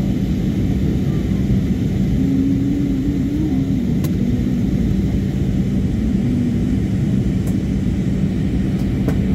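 Steady low rumble of an airliner's jet engines and rushing air heard from inside the cabin in flight, with a constant hum and a few faint clicks.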